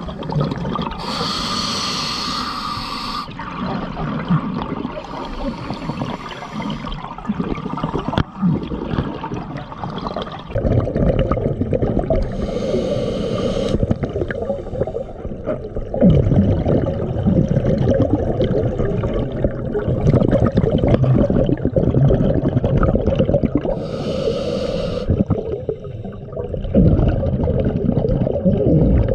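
Scuba diver breathing through a regulator underwater: about four hissing inhalations, each a second or two long, with bubbling exhalations between them.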